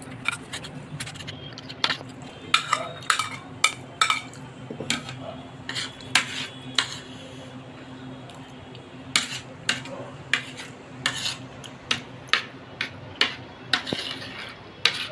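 Metal spoon clinking and scraping against a plate while scooping food, in many sharp, irregular clicks, over a steady low hum.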